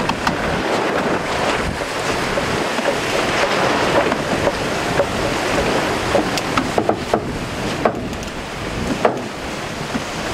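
Rush of water and wind aboard a maxi trimaran sailing fast, a steady hiss of spray and hull wash with wind on the microphone. Scattered short knocks and clicks from the boat run through it.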